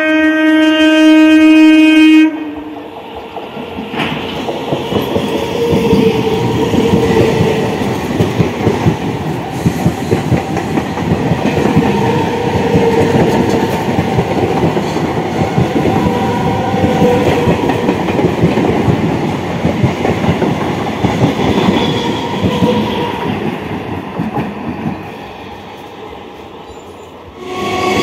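An Indian Railways EMU local train sounds a steady horn for about the first two seconds. It then runs through the station, its wheels clacking over the rail joints as the coaches go by, and the noise eases off near the end. Another horn starts just at the end.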